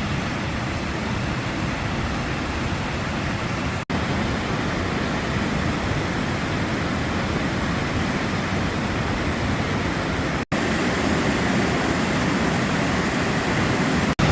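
A waterfall on the McKenzie River running high, a steady roar of falling water. It is broken by three brief cuts.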